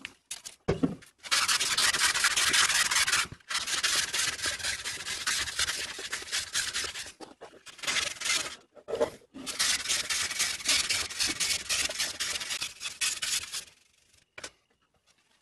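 A hand-held abrasive stone is scrubbed rapidly back and forth over the rusty, pitted steel plates of an antique wooden plow plane, cleaning off rust. The scrubbing comes in several long runs with brief pauses and stops shortly before the end.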